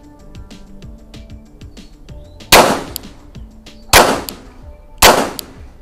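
Three shots from a Glock 44 .22 LR pistol, the first about two and a half seconds in and the next two following about a second apart, each a sharp crack with a short ringing tail.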